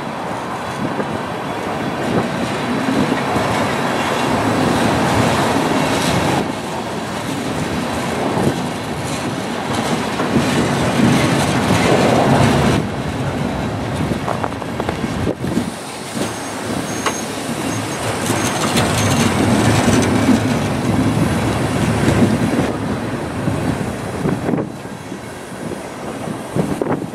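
Freight train covered hopper cars rolling past close by: steel wheels rumbling and clattering on the rails, with a faint high squeal a little past the middle.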